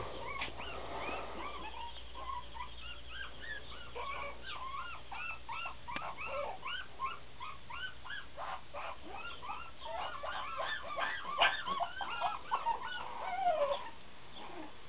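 Puppies whimpering and yipping in quick, high squeaky calls, several a second, loudest about three-quarters of the way through and stopping shortly before the end.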